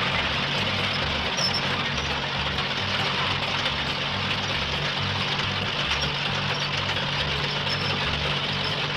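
Heavy truck engine running steadily, with a loud, even hiss over a low, evenly repeating chug.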